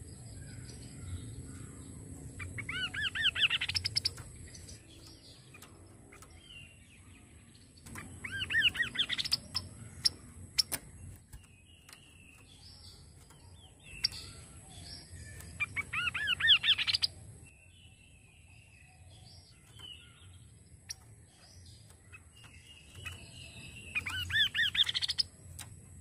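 Kaso-kaso bird singing: four loud phrases, each a fast run of rising-and-falling whistled notes lasting about a second and a half, repeated every six to eight seconds. Softer chirps and a few sharp clicks come in between.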